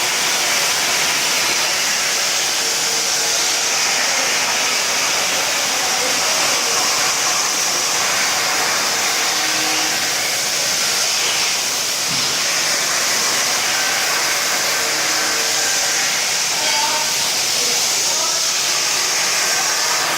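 CNC plasma cutter's torch cutting metal: a steady, loud, high-pitched hiss that holds at an even level.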